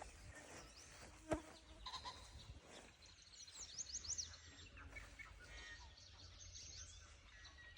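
Near silence: faint outdoor quiet with one short sharp sound about a second in and a few faint, quick, high chirps around the middle.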